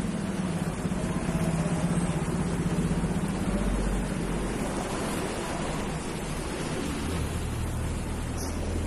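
Street traffic noise: vehicle engines humming, loudest in the first few seconds, with a deeper engine hum coming in near the end.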